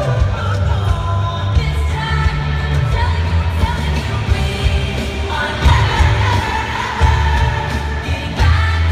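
Live pop-rock band music heard through an arena PA, recorded from the crowd: a female lead vocalist singing over electric guitar, drums and heavy bass.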